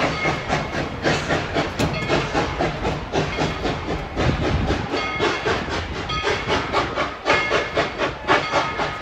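Narrow-gauge 2-8-2 steam locomotive No. 190 chuffing in a quick, steady rhythm of exhaust beats with hissing steam as it pulls its passenger train away.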